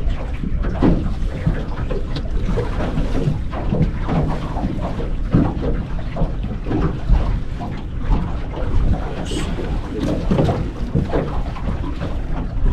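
Wind rumbling and buffeting on the microphone aboard a fishing boat, with water sounds around the hull.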